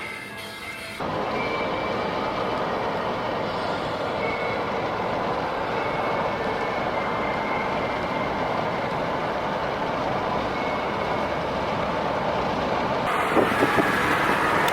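Steady road and engine noise inside a moving car, with a few short knocks near the end.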